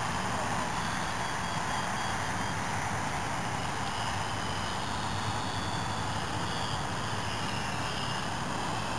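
A steady rushing noise, with the faint whine of a radio-controlled model Cessna's motor and propeller above it. The whine drifts up and down in pitch as the plane circles overhead.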